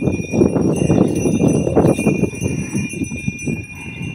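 Bells on a pair of working bullocks jingling steadily as the animals pull a wooden plough through dry soil, over a rough, irregular crunch and scrape of hooves and the plough in the dirt.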